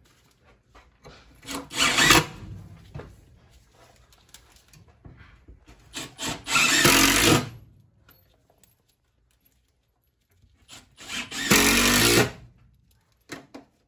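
Cordless drill/driver driving screws through a steel mounting bracket into plywood: three runs of about a second each, a few seconds apart, each with short starting blips before the screw runs in.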